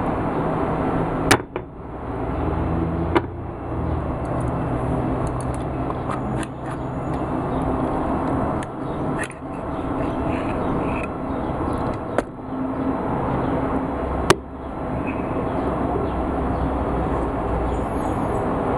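Steady background rumble and hiss, with four sharp metallic clicks and knocks from the steel parts of an IZh-27 shotgun being handled during field-stripping. The loudest clicks come about a second in and near the end.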